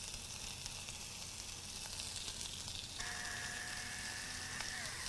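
Diced pork belly sizzling in a hot Korean stone bowl (dolsot): a steady, even frying hiss. About three seconds in, a faint steady tone joins it and slides down just before the end.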